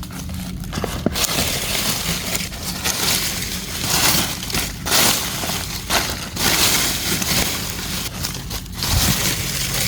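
Dry leaf litter and plant debris crunching and crackling irregularly, in uneven surges, as it is trampled or pushed aside on the forest floor.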